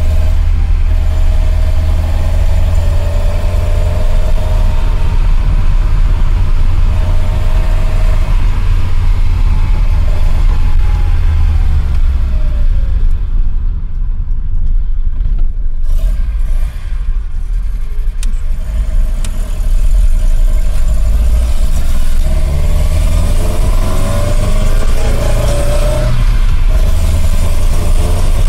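Datsun Bluebird 510's four-cylinder engine running under way over a heavy low rumble, its pitch rising as it pulls through the revs. It eases off about halfway through, then accelerates again.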